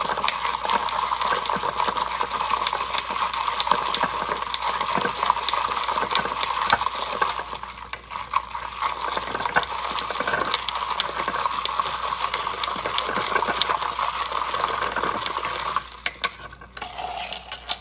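A spoon stirring fast in a glass jar, clicking and scraping against the glass as whipped coffee is mixed into milk. The stirring stops about two seconds before the end.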